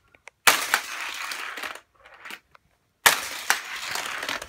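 Toy cars rolling fast along a plastic race-track playset, twice: each run starts with a sharp click and lasts about a second and a half before stopping abruptly.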